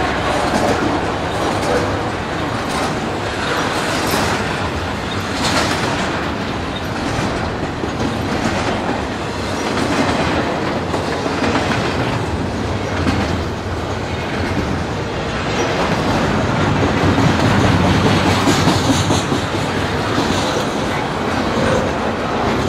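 Double-stack container well cars of a Canadian Pacific freight train rolling past, their steel wheels clattering over the rail joints with a steady rumble.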